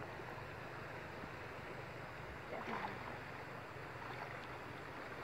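Steady outdoor noise of wind and river water, with light splashing from people swimming; a brief louder sound comes about two and a half seconds in.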